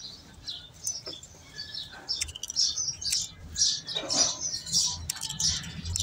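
Hand hoof-trimming shears snipping a goat's overgrown hoof: a few sharp clicks spread through, with short high chirps in between.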